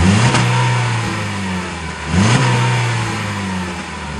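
2012 Ford Focus Titanium's four-cylinder engine blipped twice from idle, about two seconds apart, as heard at the exhaust. Each rev rises quickly and then falls back toward idle.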